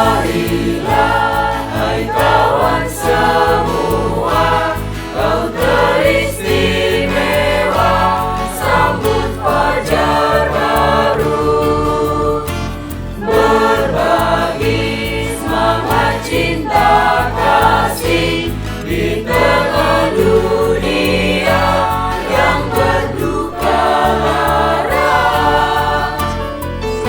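High school choir singing in harmony, with phrases swelling and breaking every few seconds.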